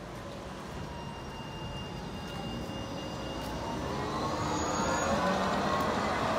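Tatra tram approaching and growing steadily louder, with a motor whine that rises in pitch over the last couple of seconds.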